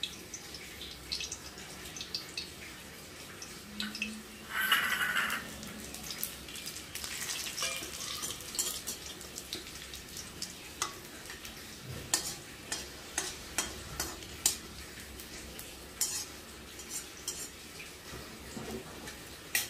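A metal slotted spoon clinking and scraping against an aluminium kadai while bay leaves and radhuni seeds are stirred in hot oil, over a faint frying sizzle. A brief louder hiss comes about five seconds in.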